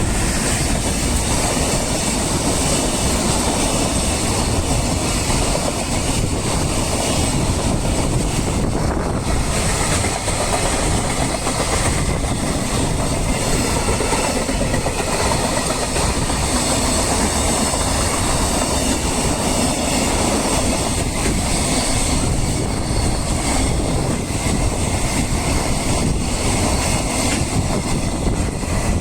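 A freight train running past on the line: wagon wheels on the rails make a steady, unbroken rumble.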